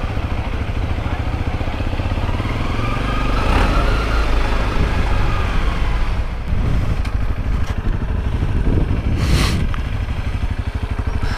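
Honda CRF250's single-cylinder four-stroke engine running while the motorcycle is ridden, its note rising and then falling a few seconds in. A brief rush of noise comes near the end.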